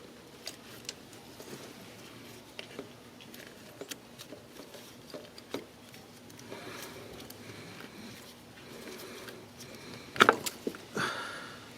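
Light, scattered clicks and rattles of an ignition coil and its plastic connector being worked loose and pulled from the engine, with a couple of sharper clicks near the end.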